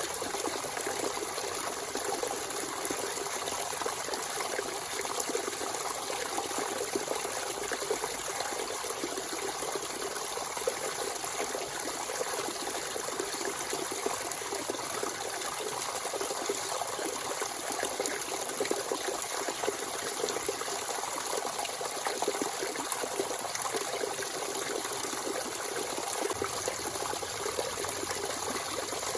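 Natural spring water running and trickling freely, a steady splashing flow.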